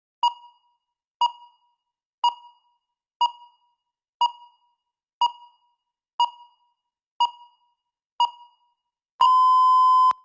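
Electronic countdown timer beeping: nine short beeps of the same pitch once a second, then one long beep of about a second as the timer reaches zero, marking that the speaking time has run out.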